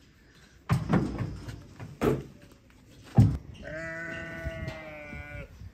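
A few knocks and one loud bang, then a sheep gives one long, steady bleat lasting nearly two seconds near the end.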